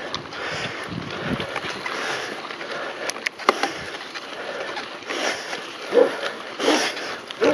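Mountain bike climbing a rough dirt track, heard from a handlebar-mounted camera: tyres rolling over dirt and gravel and the bike rattling, with a few sharp knocks a little past three seconds in and some louder bumps near the end.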